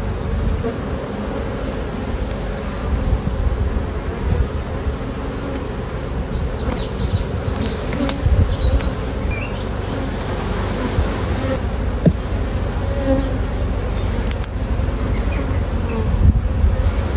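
Honeybees buzzing steadily as a dense, continuous hum around an open hive while its frames are being inspected.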